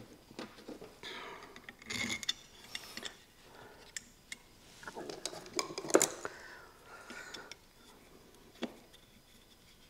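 Light metal clinks, clicks and scrapes as bolts are set into a circular saw's metal motor housing and turned with a screwdriver, in scattered, irregular handling noises.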